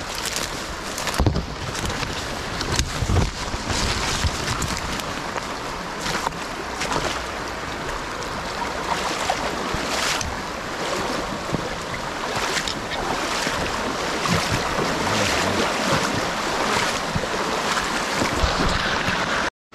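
Rushing water of a small rocky stream running steadily, with scattered knocks and bumps close to the microphone.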